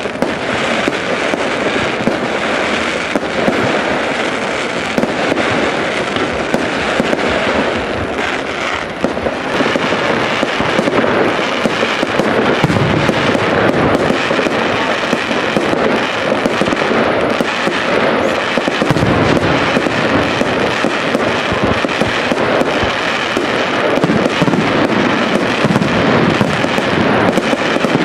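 Fireworks going off: a dense, unbroken stream of bangs, pops and crackling with no pauses, growing a little louder partway through. The noise of other fireworks displays close by is mixed in with the one in view.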